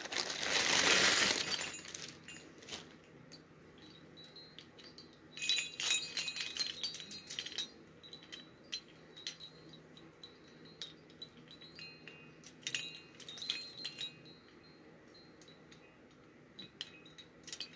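Plastic wrapping crinkling as it is pulled off for about the first two seconds, then the small metal bells of a wind chime jingling and clinking in irregular bursts as it is lifted and untangled by hand.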